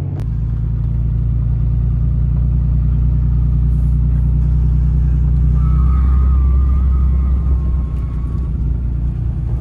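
A pickup truck's engine heard from inside the cab while driving: a deep, steady rumble. About halfway through, a thin high whistle wavers in for around three seconds.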